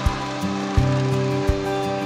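Background music: sustained chords over a bass line, with a steady drum beat about every three-quarters of a second.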